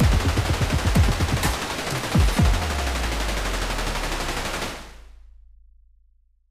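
Machine-gun fire sound effect: a continuous burst of automatic gunfire with deep booms, fading out over the last second or two.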